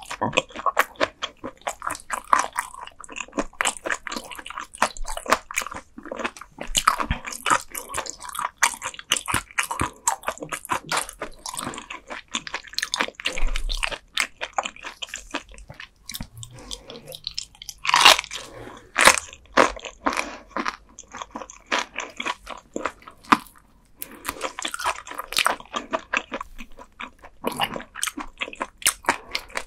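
Close-miked chewing and crunching of raw gizzard shad eaten bones and all: a dense, irregular run of crisp bites and crunches, with one especially loud crunch past the middle.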